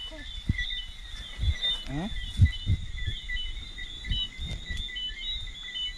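A steady night chorus of short, high chirps repeating rapidly at two pitches, with irregular thumps and rustling of footsteps through wet undergrowth.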